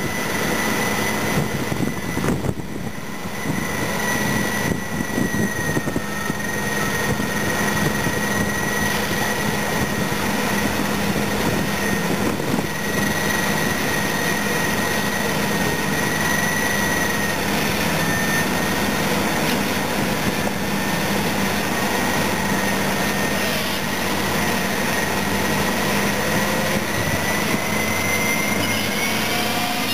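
Heavy diesel engines of a Caterpillar 637E scraper and the Caterpillar D8R dozer push-loading it, both working hard under load as the scraper's bowl fills with sand. A steady high whine runs over the engine noise and rises near the end.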